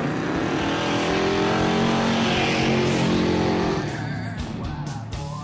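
Ford Maverick's 302 V8 revving hard in a burnout, tires spinning and squealing. The revs climb in the first second, hold high, then drop off about four seconds in.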